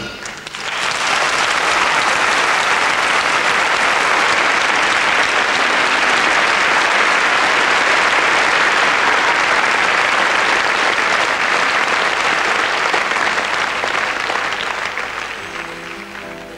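Theatre audience applauding: the clapping swells within the first second, holds steady, then fades away over the last few seconds. Soft held music notes come in near the end.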